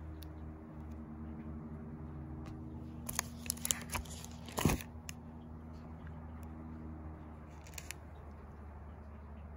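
Photo album being handled, a page turned with a quick cluster of crackles and clicks from the stiff pages and glossy photo sleeves, a few seconds in. A steady low hum runs underneath.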